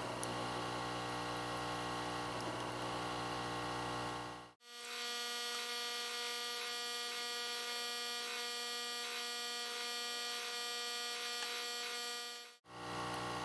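Hot air rework station blowing steadily over a chip's solder joints to free it from the circuit board: a steady electric hum of several even tones. It cuts out briefly twice, about four and a half seconds in and again near the end.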